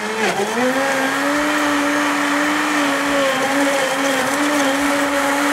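Countertop blender motor running at full speed, puréeing chopped fruit into a smoothie. A steady whine dips briefly in pitch just after the start as the blades catch the fruit, then holds steady.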